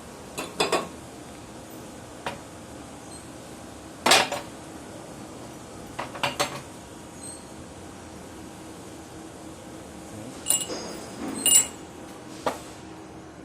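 Metal tools and parts clinking and knocking as they are handled and set down, in separate strikes spread out with pauses between them. The loudest knock comes about four seconds in, and two strikes near the end ring briefly like struck steel.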